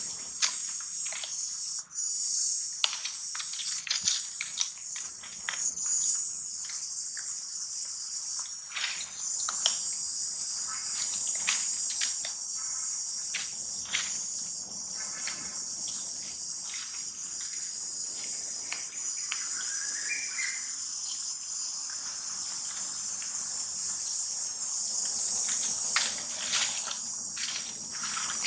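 A steady, high-pitched chorus of insects, with scattered short rustles and clicks throughout.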